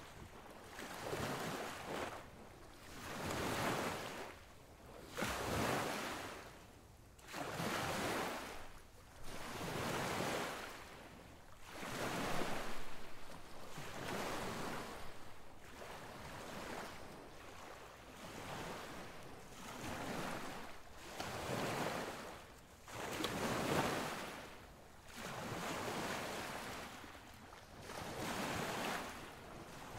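Surf washing on a sandy beach, a steady hiss that swells and fades about every two seconds.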